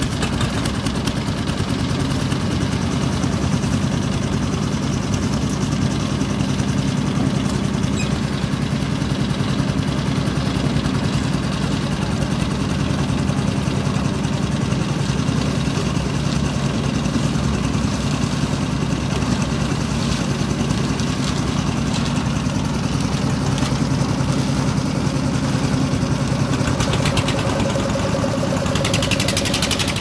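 Engine of a drum concrete mixer running steadily, turning the mixing drum.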